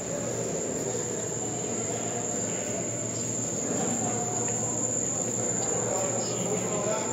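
A chorus of crickets trilling in one steady high-pitched tone, over a low, even background rumble.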